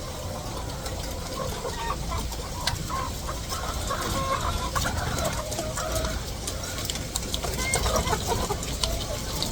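A large flock of chickens clucking and calling over one another, many short overlapping calls, over a steady low rumble.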